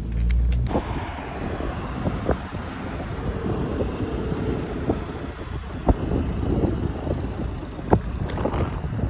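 Road traffic passing on a wide street, with wind on the microphone and a few brief sharp knocks.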